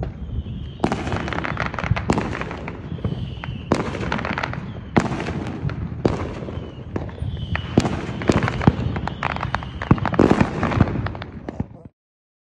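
Fireworks going off in quick succession: sharp bangs and crackling, with a few louder bangs among them. The sound cuts off abruptly near the end.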